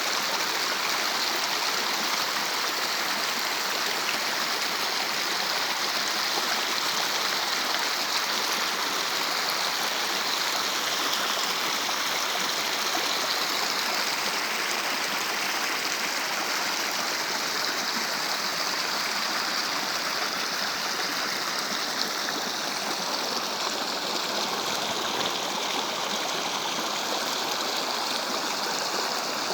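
A stream flowing steadily: an even, continuous rush of running water.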